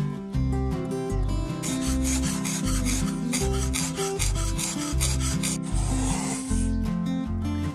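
Cheese being grated on a metal grater: quick, even rasping strokes, about four a second, from about a second and a half in to about five and a half seconds in, followed by a short hiss, over background music with a steady beat.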